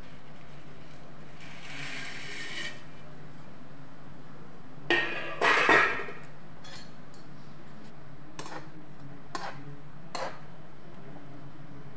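Metal slotted spoon clattering and scraping against a metal kadhai as dry noodles are pushed down into boiling water: a loud cluster of clinks about five seconds in, then three lighter taps toward the end. A steady low hum sits underneath.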